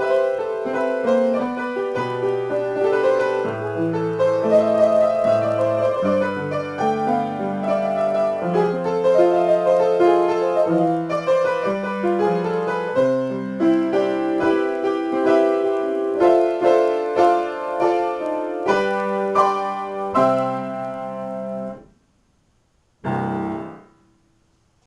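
Acoustic piano improvisation in A minor: flowing melody over low chords, played in the hands. It cuts off abruptly, and after a second's silence a single brief chord sounds and dies away.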